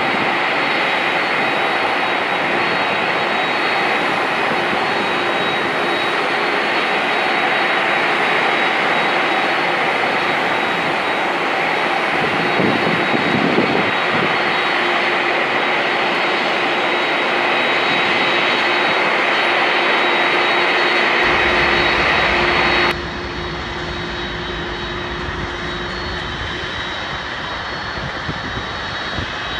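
Jet airliner engines running: a steady loud noise with several high, steady whining tones. About two-thirds of the way through it drops abruptly to a quieter, duller level.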